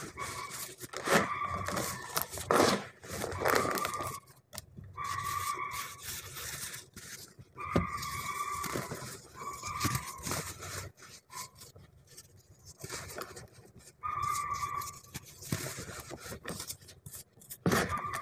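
Soft, powdery dyed chalk-like blocks being crumbled and squeezed by hand in a tub of loose powder: crunching, scraping and trickling, with a brush scrubbed across a block partway through. A short steady tone comes and goes several times alongside.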